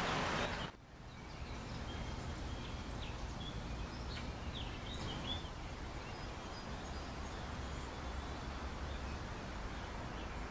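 Outdoor park ambience: a steady low rumble with a few faint, short bird chirps a few seconds in.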